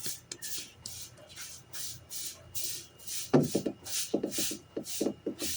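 Rhythmic rasping strokes, about two a second, like something being rubbed or scraped; a few short, lower knocking sounds fall among them in the second half.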